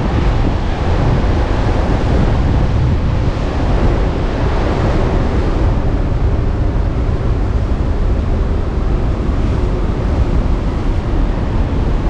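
Strong gusting wind rumbling on the microphone over heavy surf breaking and washing across a rocky shore, a constant noise.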